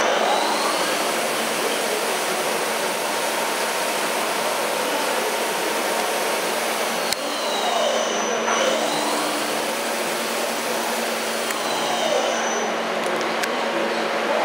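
Daewoo Puma 250LMB CNC lathe running. A steady hiss and low hum carry throughout, while its motor whine slides down and back up in pitch several times as the machine changes speed. A single sharp click comes about halfway through.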